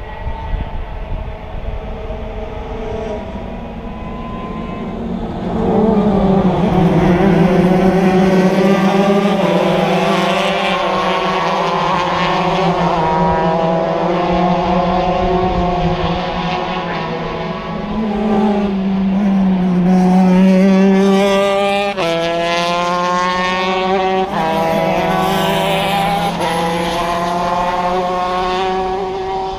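Shifter kart's stock Honda CR125 two-stroke motocross engine running at full throttle and climbing in pitch through long pulls. It drops sharply twice in the last third as it is shifted up a gear, then climbs again.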